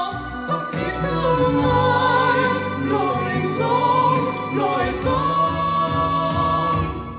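A song with a singing voice over instrumental backing, fading out near the end.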